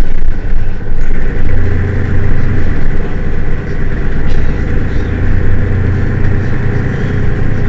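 Mercedes-Benz Citaro city bus engine running with a steady deep hum that strengthens about a second and a half in and then holds.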